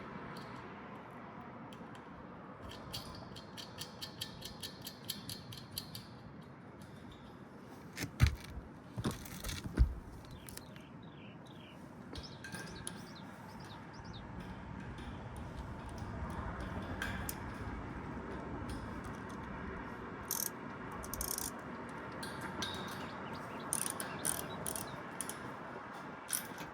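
Hand tools working on the condenser fan guard's small nuts: a run of rapid metal clicks a few seconds in, two sharp metal knocks around the middle, and scattered clicks later, over a steady background noise.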